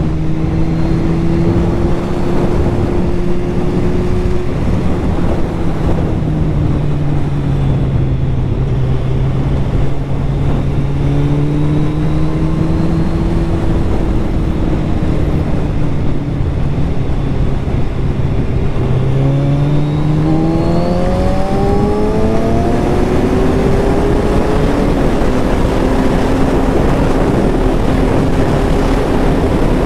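Kawasaki Z1000R inline-four motorcycle engine running under way at road speed, with wind rushing over the microphone. About two-thirds of the way in the engine note climbs in a few rising sweeps as the bike accelerates, then holds a higher steady pitch.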